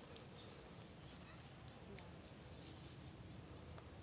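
A faint insect, likely a cricket, chirping: a short, high-pitched chirp repeated about every half second over quiet woodland background.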